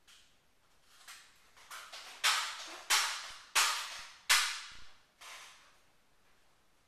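Daisy 880S pellet rifle being pump-charged: a run of about eight sharp, hissing strokes of the pump arm, the four loudest in an even rhythm about two-thirds of a second apart in the middle, each fading over half a second.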